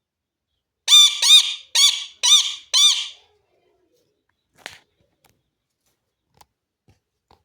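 A parrot giving five loud, harsh squawks in quick succession, each rising and falling in pitch, followed a little later by a faint click.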